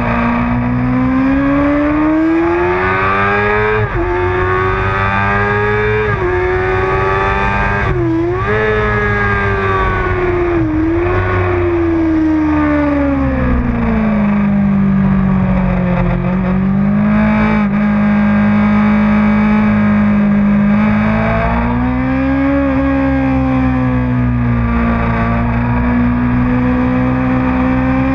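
Onboard sound of a motorcycle engine at track pace, its pitch rising and falling with the throttle through the corners. Twice, about a third of the way in, the note dips sharply and recovers; it then drops lower for a stretch in the middle and climbs again near the end.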